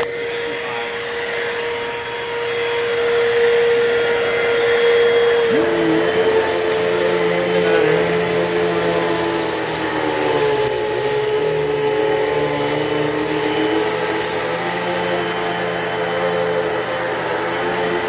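Hoover Total Home Pet upright vacuum running while it sucks up cat litter from a rug, with a steady motor tone. From about five seconds in, its pitch starts to waver and a rising hiss and rattle of litter being drawn through the machine joins it.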